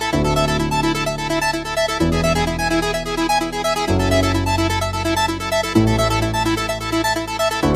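Electronic background music: a synthesizer playing sustained bass chords that change about every two seconds under a quick repeating pattern of short keyboard notes.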